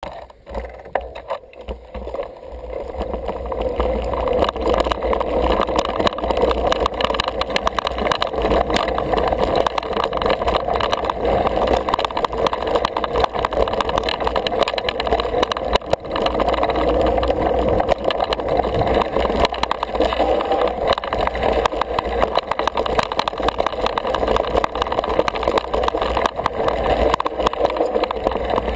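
Single-speed 29er mountain bike riding fast down a dirt singletrack, heard from a camera mounted on the bike or rider: a continuous rattle of tyres and frame over the rough trail, with dense small knocks from bumps and a steady low rumble. It builds up over the first few seconds as the bike gathers speed.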